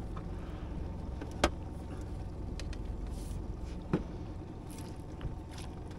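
Two sharp knocks of gear on the aluminium boat, the louder about one and a half seconds in and another about four seconds in as the landing net is picked up, over a steady low rumble.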